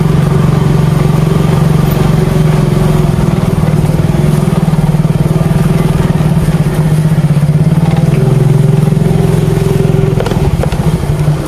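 Small motorcycle engine running steadily under way, heard from the rider's seat as a dense low throb. The engine note changes and eases slightly about ten seconds in as the bike slows.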